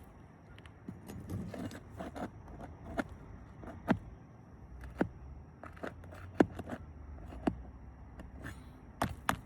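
Nails being pried out from under composition (asphalt) shingles: a metal tool scraping against the shingles, then sharp metallic clicks about once a second, with a quick pair near the end.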